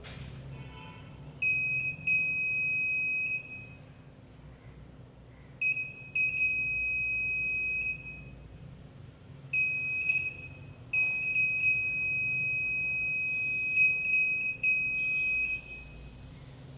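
Electronic buzzer of a model fire alarm sounding its alarm: a steady high-pitched tone switching on and off in four bursts, each about one to four seconds long.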